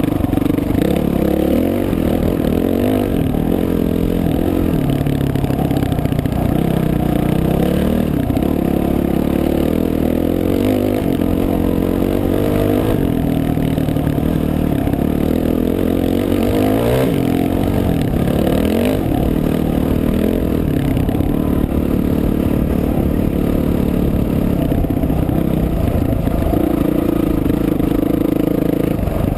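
Dirt bike engine heard from the rider's helmet while riding, revving up and easing off again and again as the throttle changes.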